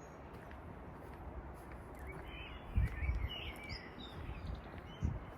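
Small birds chirping over a steady outdoor background hiss, with a run of quick wavering chirps about two to three seconds in. A couple of low thumps come near the middle and near the end.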